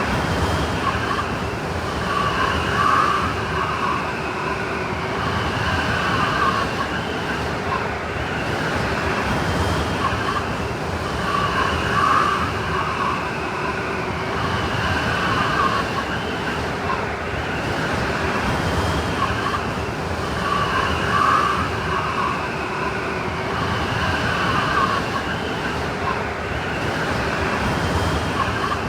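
Blizzard wind sound effect: a steady rush of wind with howling tones that swell and fade every few seconds.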